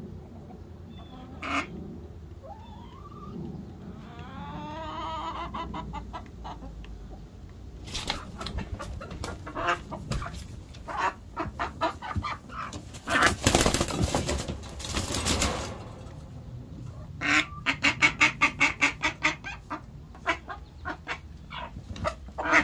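A hen clucking and squabbling with a duck on its nest: a few short calls, then from about eight seconds in scuffling and rustling in the hay, with a loud noisy flurry in the middle and a quick run of strokes a few seconds later.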